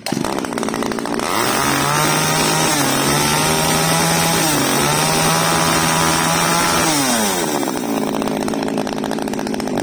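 Kyoritsu Echo 33cc two-stroke chainsaw running: it idles briefly, then is revved hard for about six seconds, its pitch sagging twice. Near the end it drops back to a fast idle.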